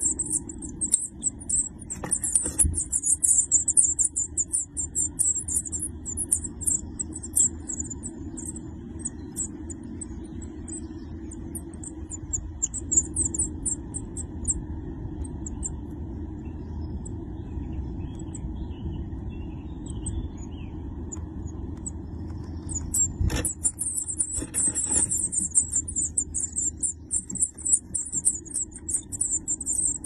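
Tit nestlings begging in a nest box: a rapid, high-pitched chittering that dies away after about fifteen seconds and starts again right after a sharp knock about twenty-three seconds in, when the parent returns with food. A steady low hum runs underneath.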